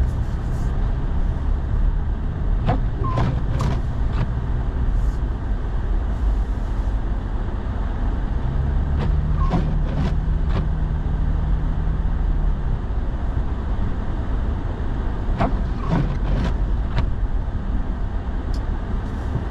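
Steady low rumble of a truck's engine and tyres, heard inside the cab while driving, with a few clusters of short clicks. A steady low hum joins for a few seconds midway.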